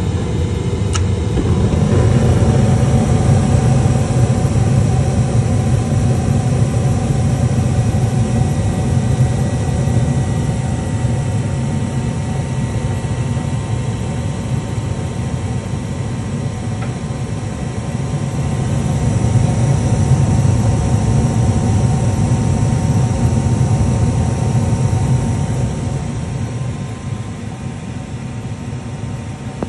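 Gas furnace running: a steady hum from the motor with a low rumble under it. A click comes about a second in, then the rumble swells as the burners light, and it eases off somewhat over the last few seconds.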